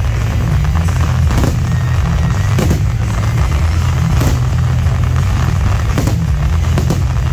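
Fireworks display going off: sharp shell bursts roughly every second and a half over a steady low rumble, with music playing along.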